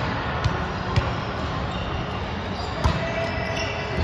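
A ball bouncing on a hardwood gym floor in a large echoing hall: a few sharp thumps, two of them about half a second apart within the first second and another near three seconds in, over low background voices.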